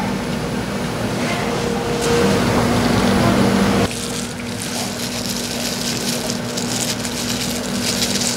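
Steady mechanical hum with a rushing noise from kitchen machinery; the sound changes abruptly about four seconds in, the low hum dropping and a higher crackle coming up.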